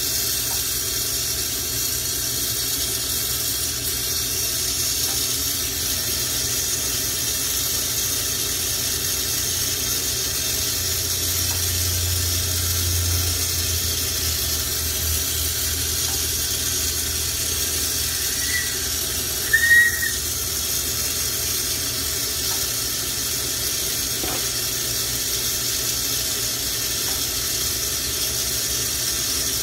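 Lampworking bench torch burning with a steady hiss. About two-thirds of the way in, a brief high squeak sounds over it and is the loudest moment.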